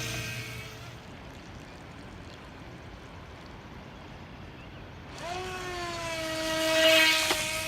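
Electric motor of a radio-controlled speedboat whining as it runs across the water. One pass fades out in the first second, and a second, louder pass starts about five seconds in and peaks near the end.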